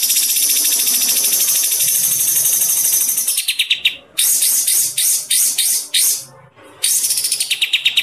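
A songbird singing fast, high-pitched trills: one long unbroken trill of about four seconds, then shorter trilled runs, a brief pause around six seconds in, and another trill near the end.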